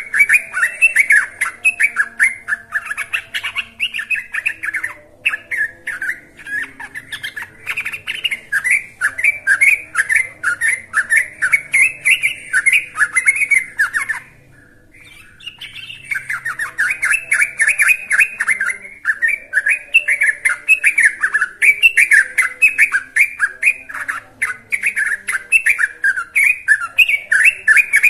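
Young yellow-vented bulbul singing nonstop: long, rapid runs of short bubbly, chattering notes, broken once by a brief pause about halfway through.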